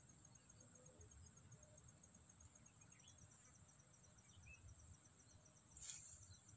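Outdoor waterside ambience dominated by insects: a steady, high-pitched trill, with a few faint bird chirps over it.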